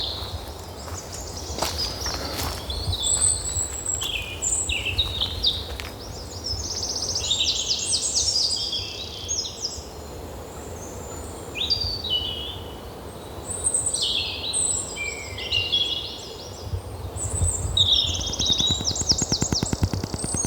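Songbirds singing: bursts of fast warbles and trills that come and go every few seconds, over a steady low rumble, with a few sharp clicks in the first couple of seconds.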